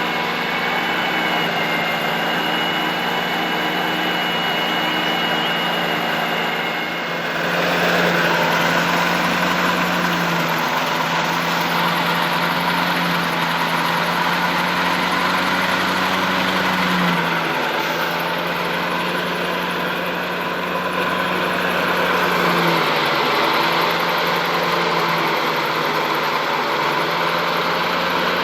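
Engine of wheat-harvesting machinery running steadily. About a quarter of the way in a faint high whine drops away and the sound grows louder and rougher, with small shifts in engine pitch later on.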